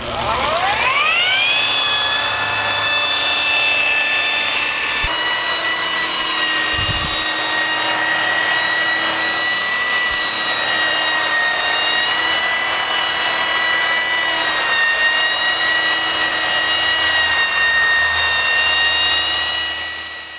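Scarab handheld concrete grinder, driven by a Makita angle-grinder motor, spinning up with a rising whine and then running steadily at speed. It is burnishing a freshly sealed concrete floor with a hog's hair pad.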